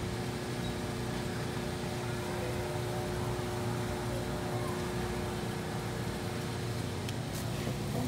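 Steady hum of commercial freezer-case refrigeration and fans, a low drone with a few steady tones over it.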